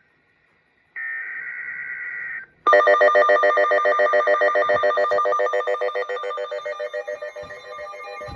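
NOAA Weather Radio emergency alert: after a second of silence, a short buzzy burst of SAME header data, then about three seconds in a loud alert tone starts, warbling rapidly and gradually weakening, signalling an incoming high wind warning.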